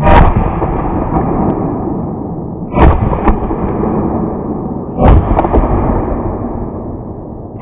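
Three loud shotgun shots about two and a half seconds apart, with a fainter crack just after the second. Each shot trails off slowly.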